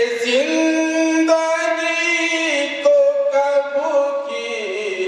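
A man singing a devotional recitation unaccompanied into a microphone, in long held notes that bend slowly in pitch.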